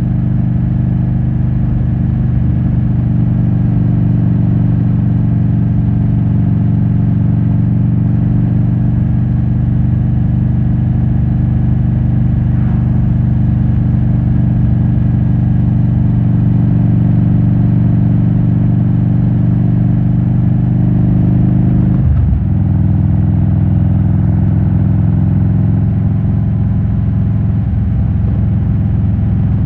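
Harley-Davidson Road King Classic's 96-cubic-inch V-twin, with S&S cams and Rush Big Louie mufflers, running steadily under way. About two-thirds of the way through the engine note dips sharply for a moment and settles slightly lower, as at an upshift.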